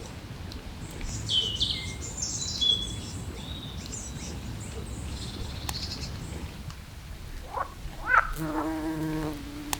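Forest ambience: high chirping calls between about one and five seconds in, then a lower pitched call with quick rising sweeps near the end, over a steady low background noise.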